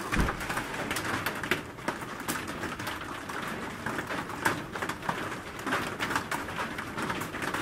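Rain pattering and dripping, with many small irregular taps of drops.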